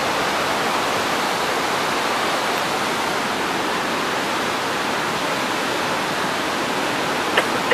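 Steady rush of the Whirlpool Rapids, Class 6 white water with large standing waves on the Niagara River.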